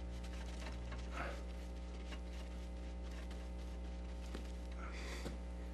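Faint scratchy brushing of a paintbrush working paint onto canvas, over a steady low electrical hum.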